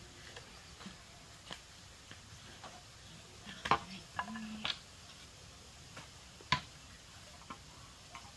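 Scattered light clicks and knocks, irregularly spaced, with a louder knock near the middle and another about two-thirds through.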